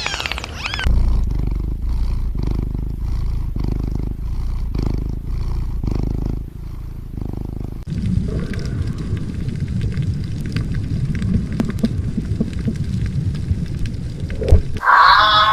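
Low animal growls in two sound-effect clips: first a pulsing series of growls, then from about eight seconds in a denser, rougher rumbling growl that stops shortly before the end.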